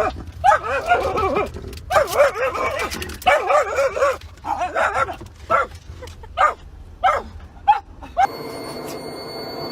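A dog whining and yowling in a series of wavering, up-and-down calls, some short and some drawn out. The calls stop abruptly about eight seconds in, giving way to a quieter background with a faint steady high tone.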